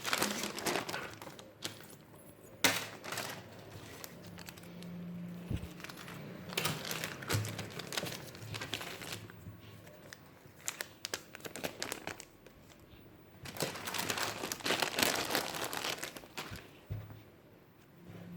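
Packaging crinkling as squishies are unboxed and handled, in several irregular bouts, the longest about six seconds in and again about thirteen seconds in.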